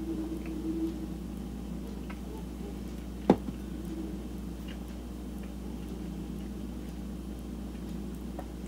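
Steady low room hum with a single sharp click about a third of the way in, and a few faint ticks.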